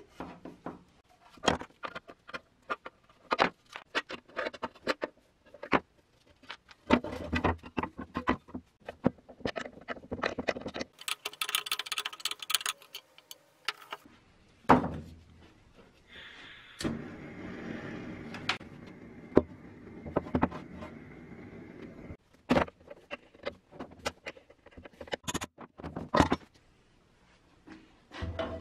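Metal parts of a vintage Triumph balance scale clicking and knocking against each other and the wooden workbench as it is taken apart by hand. There are two stretches of steady noise a few seconds long in the middle.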